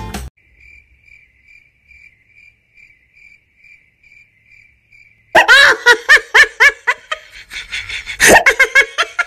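Faint, evenly repeated cricket chirping, the stock awkward-silence sound effect, for about five seconds. Then loud laughter breaks in.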